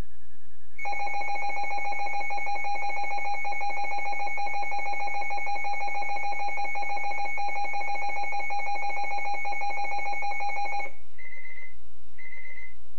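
Emergency alert attention tone: a steady, harsh alarm tone that sounds for about ten seconds and cuts off, followed by two short higher beeps, marking the start of a weather warning broadcast.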